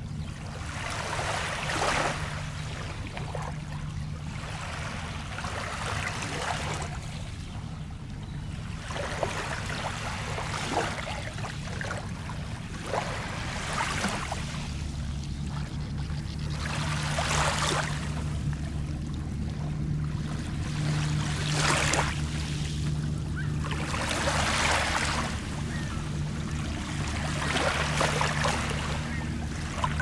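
Small Lake Michigan waves lapping onto a pebble shore: a soft wash rises and falls every three or four seconds as each ripple runs up over the stones and drains back.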